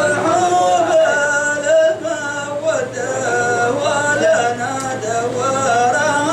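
Male voice singing a long, ornamented, gliding melodic line in the Hadhrami dan style of sung poetry.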